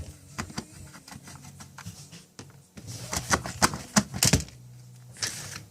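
A series of sharp clicks and taps of small hard objects, thickening into a quick cluster from about three seconds in, then a short hiss near the end.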